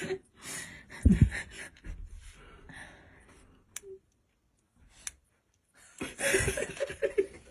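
Muffled breathing and stifled laughter close to the microphone, with a low thump about a second in. Two sharp clicks come in the middle as the buttons of a car key fob are pressed, and the stifled laughing picks up again near the end.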